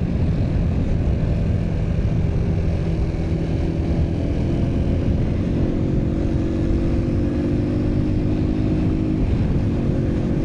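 Heavy wind rumbling on a clip-on microphone on a motorcycle cruising at about 70–80 km/h, over the steady note of the bike's small engine, which climbs slightly in pitch about three seconds in.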